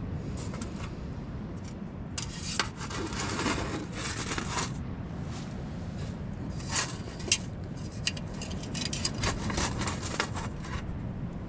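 Rasping scrapes of a ferro rod being struck to light an alcohol stove, coming in runs of strokes.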